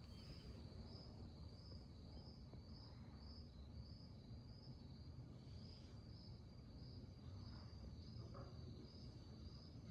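Near silence: faint room tone with a thin, high-pitched whine that pulses steadily a little under twice a second.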